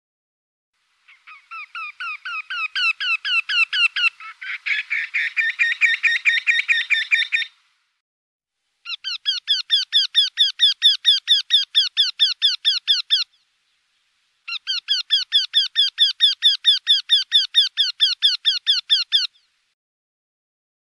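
Eurasian wryneck song: three runs of quickly repeated nasal notes, about five a second, each run lasting four to six seconds. In the first run a second overlapping series of notes joins in about halfway, and the run grows louder.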